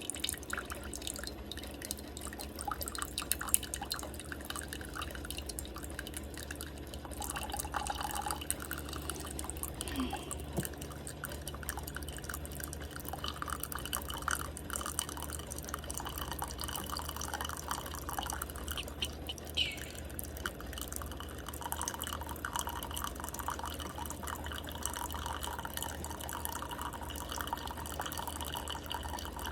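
Keurig K-Express Essentials single-serve coffee maker brewing an 8-ounce cup: coffee dripping and trickling into the cup over a steady low hum.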